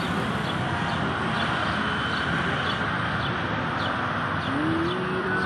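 Steady street background noise of traffic, with small birds chirping faintly throughout and a short rising tone that holds near the end.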